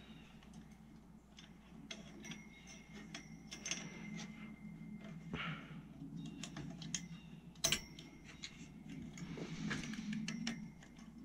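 Hands handling parts inside an open steel desktop computer case: a run of small clicks, taps and rattles of metal and plastic, some of which leave a short metallic ring, with a soft rustle near the end.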